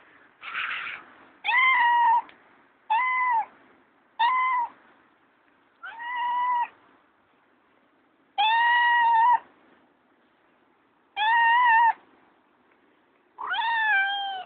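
Calico cat meowing repeatedly: about eight short meows a second or two apart, the last one starting high and falling in pitch.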